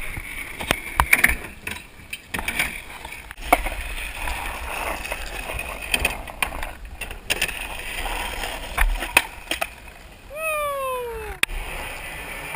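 Skateboard being ridden for tricks: wheels rolling on concrete with a run of sharp board clacks and knocks. About ten seconds in, a pitched sound falls in pitch for about a second.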